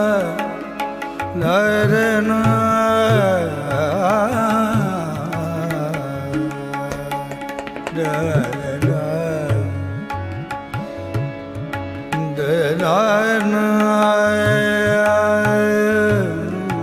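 Indian classical-style background music: tabla strokes under an ornamented, gliding melodic line.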